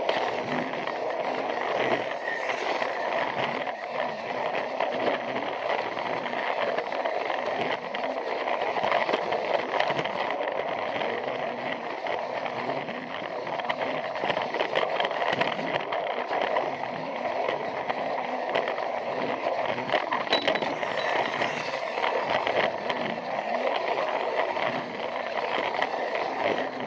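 Plarail battery-powered toy train running on plastic track: a steady whirr of its small motor and gears with a fast, continuous clatter of many small clicks from the wheels on the track.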